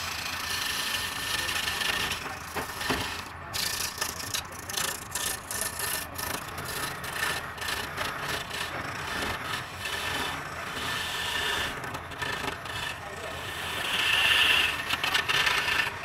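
Turning chisel scraping and cutting into the end face of a large wooden blank spinning on a wood lathe: a continuous scrape broken by many short gaps through the middle as the tool skips on and off the wood, growing louder near the end.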